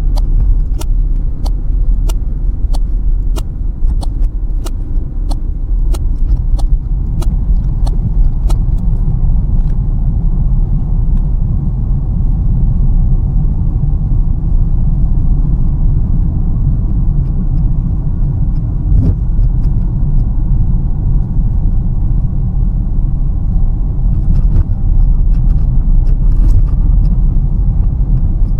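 Car cabin road noise: the steady low rumble of the engine and tyres on the road. A regular ticking, about two ticks a second, stops about nine seconds in.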